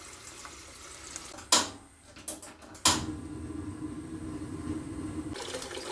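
Kitchen sounds: a tap running faintly into a stainless steel bowl in the sink, then two sharp knocks about a second and a half apart, then a steady low hum for about two seconds.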